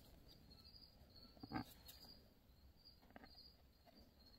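Near silence: faint insects chirping in a steady high pulse, with a soft tap about a second and a half in and a weaker one near the end.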